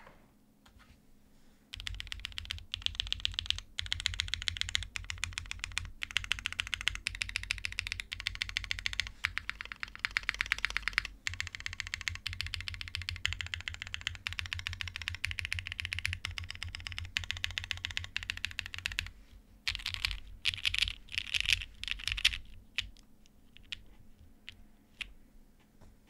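Rapid typing on a gummy-O-ring-mounted Mekanisk Klippe T mechanical keyboard with lubed NK Launch Cream linear switches, a full aluminium plate and GMK keycaps: a dense stream of key clacks from about two seconds in. After a short pause there is another fast flurry, then a few scattered keypresses near the end.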